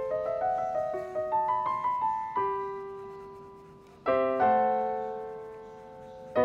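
Background piano music: a quick run of single notes, then a held note fading, and a fuller chord struck about four seconds in and another near the end.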